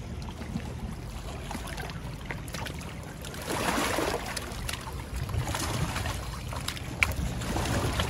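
A hooked shad splashing and thrashing in shallow water among rocks as it is landed, the splashing starting about three and a half seconds in, over a steady low rumble of wind on the microphone. A single sharp click near the end.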